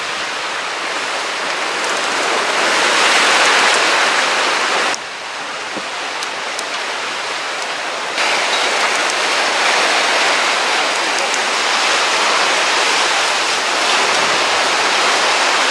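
Steady rushing noise of wind and rain at sea in stormy weather, with sudden drops and rises in level about five and eight seconds in.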